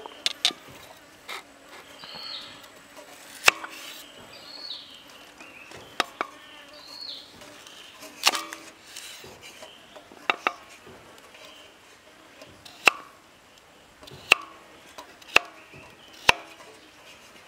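Large kitchen knife chopping a carrot on a thick wooden chopping block: about a dozen sharp knocks at uneven intervals, some in quick pairs.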